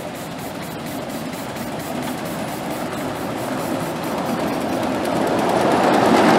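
Ridable miniature live-steam locomotive running at speed with its train, a quick even beat over a steady rumble, growing steadily louder as it approaches.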